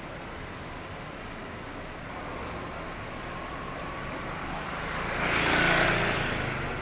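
Steady street traffic, then a motorbike passes close by, its engine rising to the loudest point about five to six seconds in and fading as it goes.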